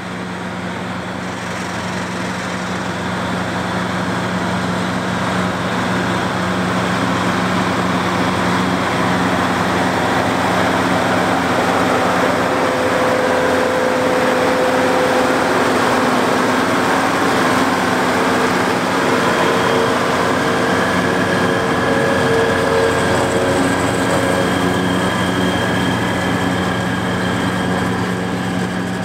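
White 195 Workhorse tractor's 8.3-litre Cummins diesel working steadily under load as it pulls a running PTO-driven forage harvester chopping alfalfa into a forage wagon. A steady drone that swells as the rig comes close, past the middle, with a higher steady whine from the harvester in the second half.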